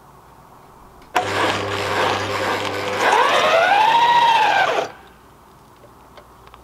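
Corded electric drill running as the drive of a home-built scooter, spinning its friction wheel against the rear tyre, which slips rather than grips. It starts suddenly about a second in, gets louder partway through with a whine that rises and then falls in pitch, and cuts off suddenly after about four seconds.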